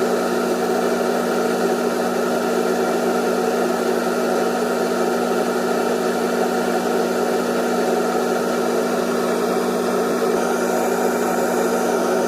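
Electric motor running steadily: a constant hum with a noisy mechanical whirr around it, unchanging in pitch and level.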